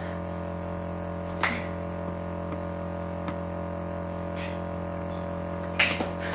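A steady drone made of several even tones, broken by a few sharp slaps: one about a second and a half in and two close together near the end.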